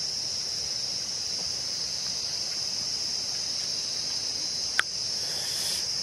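Steady, high-pitched drone of insects calling without a break, with one short sharp click a little before the end.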